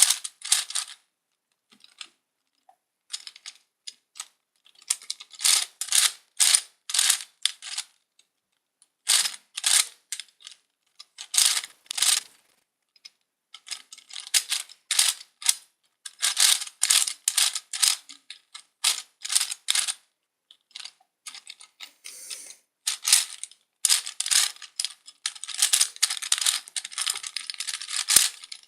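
Gear Ball puzzle's plastic gears clicking as its faces are turned in quick runs of twists, with short pauses between runs while the solver works out the next moves.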